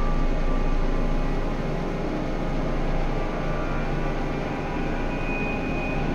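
A dense, steady electronic drone of many held tones over a low hum, from an experimental soundtrack. A higher held tone joins near the end.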